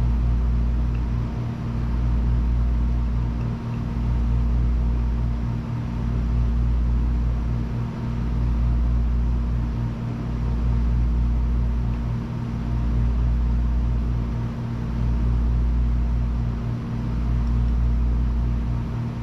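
Steady low machine hum that swells and dips in an even cycle about every two seconds, with a constant tone above it.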